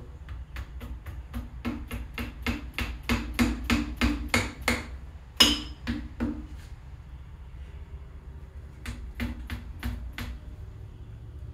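A mallet tapping the crankshaft down into the main bearing saddles of a 1999 Mustang Cobra's 4.6 DOHC V8 block: a rapid string of light taps at about five a second, one harder ringing blow about five seconds in, a few more taps, then after a pause a last short run of taps near the end.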